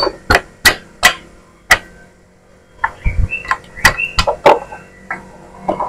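Hammer knocking on the split aluminium crankcase of an old Yamaha Vixion engine to drive out the clutch-housing shaft. About five sharp blows come in the first two seconds, then after a short pause a run of lighter, ringing metal knocks and one more near the end.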